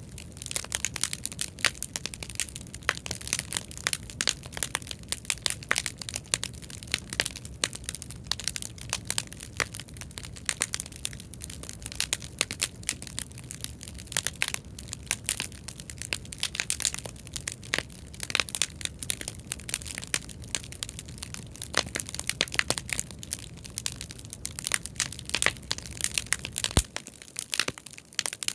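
Bonfire of scrap lumber offcuts stacked in a teepee crackling and popping, with dense irregular snaps. A low rumble underneath stops shortly before the end.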